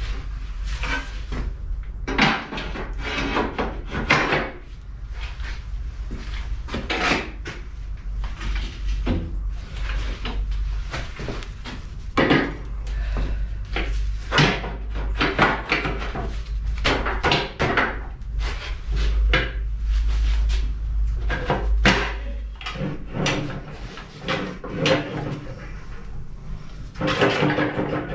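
Steel locomotive parts knocking and clunking as they are handled and set into a steel chassis frame, an irregular string of knocks and scrapes over a steady low hum.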